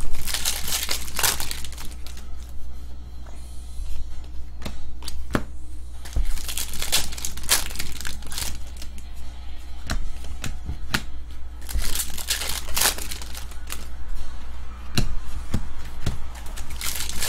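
Foil trading-card pack wrappers being torn open and crumpled by hand, in several bursts of crinkling with sharp clicks from handling the cards between them.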